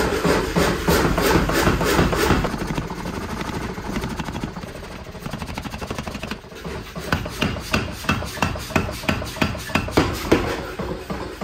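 Power hammer rapidly pounding a red-hot steel billet held in tongs, several blows a second, with a brief lull about two-thirds of the way through before the blows resume.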